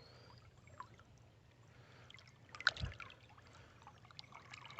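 Faint water sounds as a glass bottle is handled and lifted from a shallow creek, with one short splash and low thump about two and a half seconds in.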